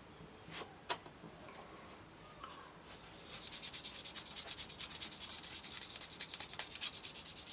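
Abrasive side of a polishing stick rubbed in quick short strokes over the plastic wing-root joint of an Airfix Bf109E model kit, flattening off dried glue marks. A couple of light handling clicks come first; the rubbing starts about three seconds in.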